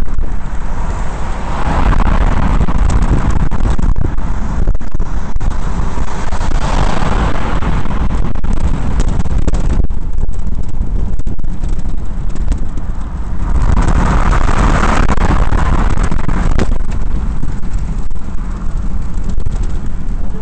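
Road and wind noise on a moving camera's microphone: a steady low rumble, with a louder hiss swelling up three times as traffic passes.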